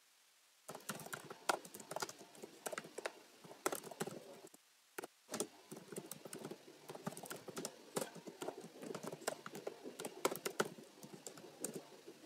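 Computer keyboard typing: quick, irregular key clicks starting under a second in, with a brief pause around four and a half seconds in.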